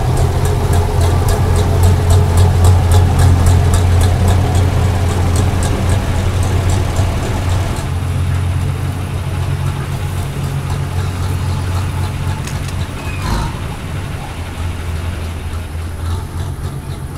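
Bizon Super Z056 combine harvester's SW-400 diesel engine running steadily with a deep hum, slowly fading as the machine moves off. A single short knock sounds about thirteen seconds in.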